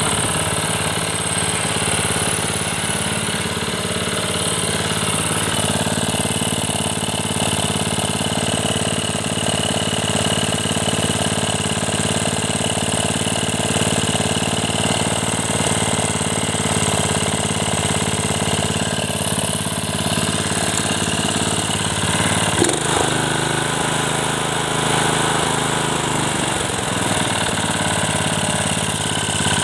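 Small single-cylinder petrol engine of a concrete power trowel running steadily. About three quarters of the way through, a knock comes, the engine speed sags, and it then picks back up to its steady running.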